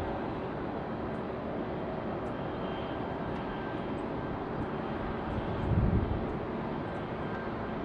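Distant jet aircraft engines running steadily at the airport, a wide rushing noise with a faint high whine. About six seconds in, a brief low rumble of wind on the microphone stands out as the loudest moment.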